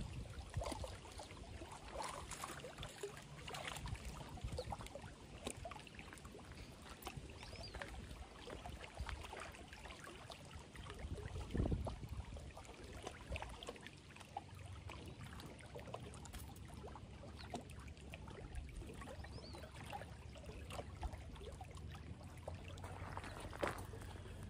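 Faint lapping of small waves against a stony lakeshore. About halfway through comes one brief louder thump, and near the end footsteps crunch on gravel.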